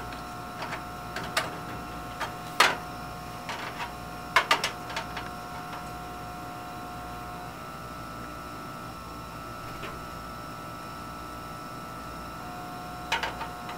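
Steady hum of a biosafety cabinet's blower. A few sharp clicks and taps from plastic culture flasks and caps being handled sound over it, about two and a half seconds in, around four and a half seconds in, and near the end.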